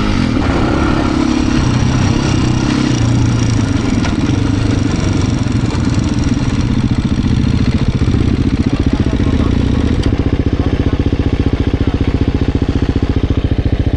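Beta RR390 X-Pro's single-cylinder four-stroke dirt bike engine heard from on board, running at low revs and settling into an even, pulsing idle in the second half.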